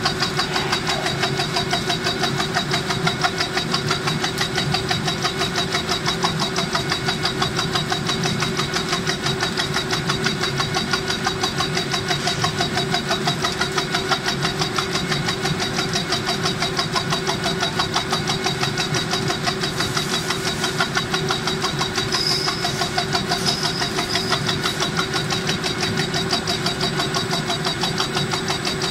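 A Borghi brush tufting machine at work, punching tufts of filament into a round floor-scrubber brush block. It makes a fast, even run of mechanical strokes over a steady machine whine.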